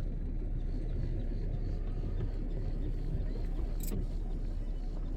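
Van engine running at a steady low rumble, heard from inside the cabin, with a single short click about four seconds in.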